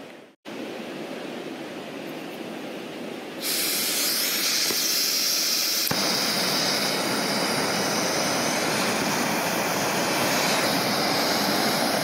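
Canister backpacking stove: gas hisses out of the burner once the valve is opened, about three seconds in. A click a little before halfway as a lighter ignites it, after which the lit burner runs with a steady hiss at high flame.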